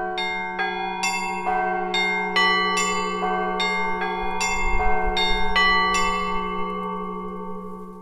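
Set of Orthodox church bells struck by rope-pulled clappers, ringing the lower leading version of a syncopated right-hand pattern at about two strokes a second over a steady low tone. The strokes stop about six seconds in and the bells ring on, fading.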